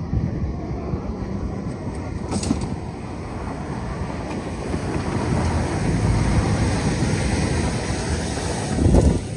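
Continuous rushing, rumbling noise, growing louder after about halfway, with a loud surge near the end that cuts off suddenly.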